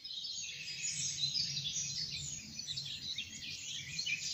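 Many small birds chirping and singing at once in quick, overlapping chirps, over a faint low hum.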